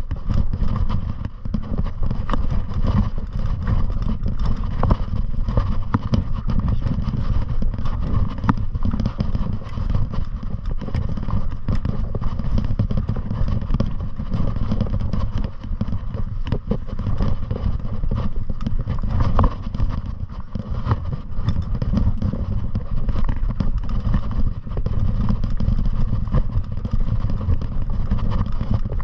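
Wind buffeting the microphone, with rattling and clattering from riding downhill over rough ground.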